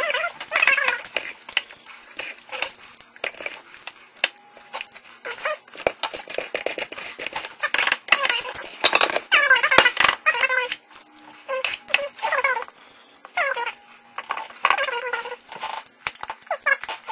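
A spoon clinks and scrapes against a metal muffin pan as sticky batter is scooped into the cups. A cat meows several times, in short calls that rise and fall.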